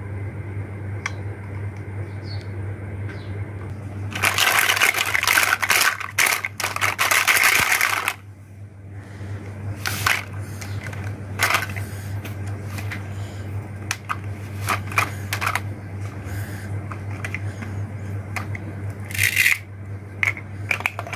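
Plastic toy fruit and vegetable pieces clattering and rattling in a plastic basket as hands rummage through them: a dense stretch of rattling about four to eight seconds in, then scattered single knocks and clicks. A steady low hum runs underneath.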